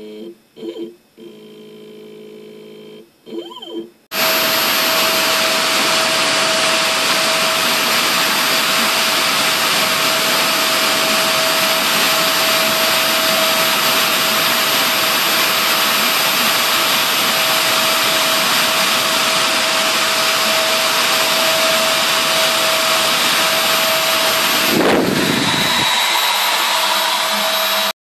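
Short bursts of humming from the Shapeoko 2 CNC machine's stepper motors, then, about four seconds in, a Kress 800 spindle switches on abruptly and runs loud and steady with a constant whine while its engraving bit mills traces into the copper of a PCB blank.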